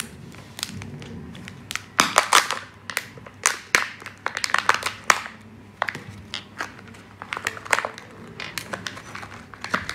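Kinder Joy egg being opened by hand: foil wrapper and plastic shell crinkling and clicking as the two halves are pulled apart and the foil seal is peeled off the toy capsule. The crinkles and clicks come in clusters, thickest from about two to five seconds in.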